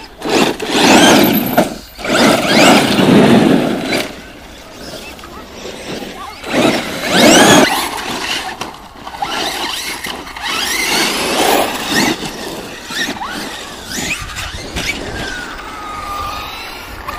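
Radio-controlled monster trucks driving hard over dirt: their motors whine, rising and falling in pitch as they accelerate and let off. The trucks pass loudly about a second in, again between two and four seconds, and around seven seconds, with quieter whining between.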